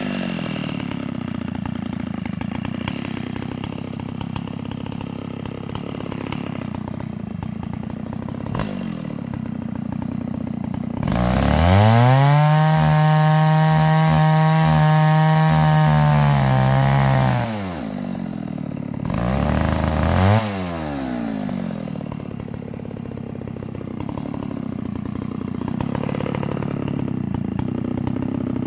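A small engine running, revving up hard about eleven seconds in, holding high for about six seconds, then dropping back. A second short rev follows a little over a second later.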